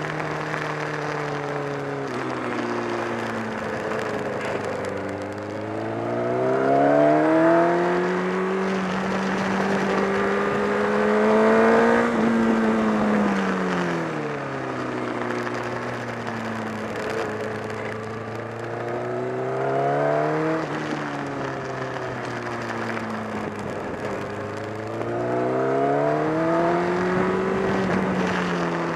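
Honda CBR1000RR inline-four sport-bike engine under way, its note rising and falling several times as the bike accelerates and backs off. The rider reports a growing flapping (batabata) noise from around the engine and a loss of torque.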